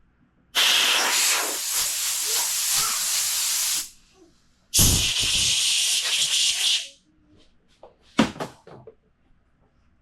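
Two long bursts of pressurised gas hissing from a nozzle, each switched on and cut off sharply: the first lasts about three seconds, the second about two. A short knock follows near the end.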